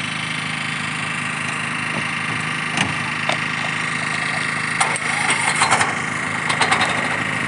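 Engine running steadily on a firefighting pickup, from its motor or its water pump. Sharp crackling snaps come in bursts on top of it from about five seconds in.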